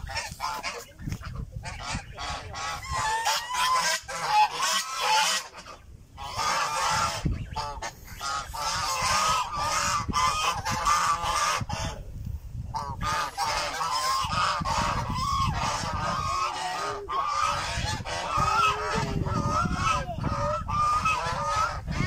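A small flock of white domestic geese honking and calling, several voices overlapping almost continuously, with short lulls about five and twelve seconds in.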